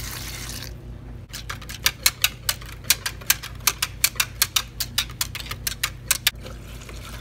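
Wire whisk clicking fast against the side of a bowl, about five strokes a second, as warm goat milk is whisked into gelatin and yogurt culture to keep the gelatin from clumping. A brief pour of milk from a steel pot at the very start.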